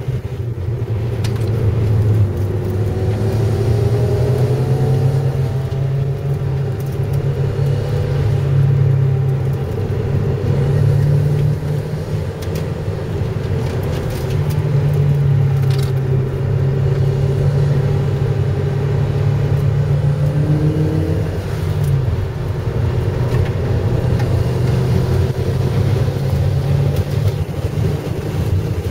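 Car engine and road noise heard from inside the cabin as the car is driven at speed on a race track, a steady low engine drone whose note dips and changes pitch briefly a few times.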